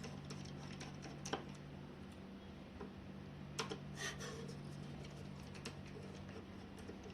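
Scattered small clicks and taps of laptop parts being handled, over a steady low hum, with a few sharper clicks about a second in and around the middle.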